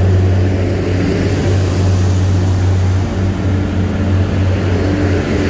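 Class 175 diesel multiple unit pulling out past the platform, its underfloor diesel engines running with a steady low drone and a faint high whine.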